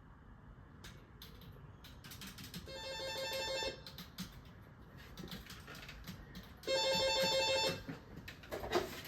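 Telephone ringing twice, each ring a fast trilling tone about a second long, with a pause of about three seconds between them.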